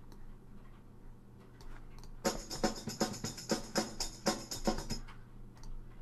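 A GarageBand Motown Drummer drum loop previewing in the loop browser: a drum-kit pattern with bright jingling hits, about five strikes a second. It starts about two seconds in and cuts off abruptly about three seconds later.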